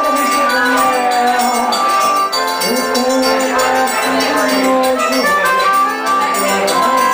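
Live forró band playing: an accordion carries sustained melodic notes over guitar, zabumba drum and hand percussion in a steady, driving rhythm.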